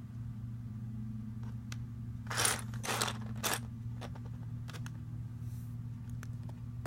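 LEGO pieces being handled: scattered light plastic clicks, with three short clattering, rustling bursts about two and a half to three and a half seconds in, over a steady low hum.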